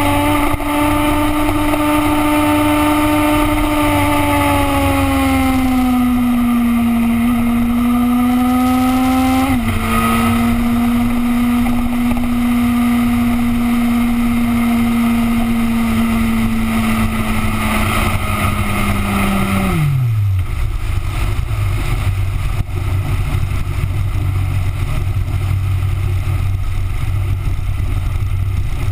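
Yamaha YZF-R1 inline-four engine running at steady cruising revs. Its pitch eases down, drops suddenly about ten seconds in, then falls away steeply about two-thirds of the way through, leaving a low rumble.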